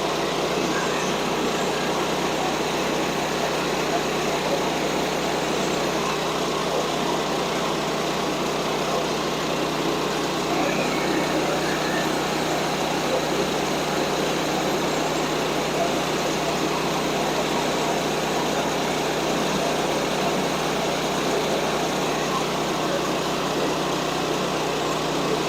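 Small gas engine of a portable bandsaw sawmill running steadily at an even speed.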